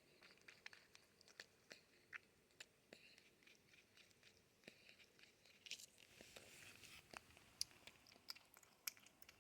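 Near silence with faint, irregular small clicks and crunches, and a soft rustle about six seconds in.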